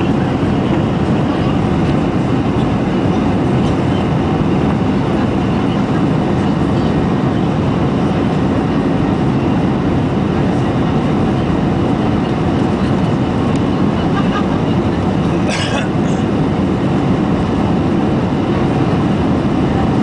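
Boeing 737-800 cabin noise heard from a window seat during the climb after takeoff: a steady low rumble and rush from the CFM56-7B engines at climb thrust and air streaming past the fuselage. A short higher-pitched sound breaks in about three-quarters of the way through.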